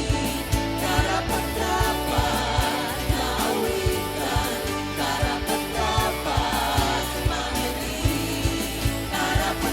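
Worship song playing: several singing voices over a band with a steady drum beat.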